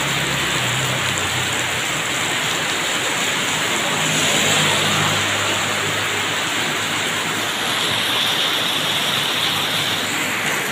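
Heavy tropical rain pouring steadily onto a flooded road. A motorbike's engine hums faintly as it passes in the first couple of seconds.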